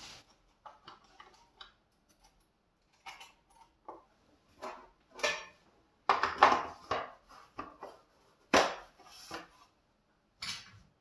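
Scattered clicks, knocks and rustling as a sanding belt is fitted by hand onto a Grizzly benchtop belt sander and its tension arm is worked, with the motor off.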